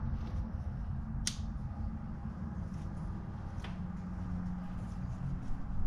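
Steady low room hum, with two sharp clicks about two and a half seconds apart.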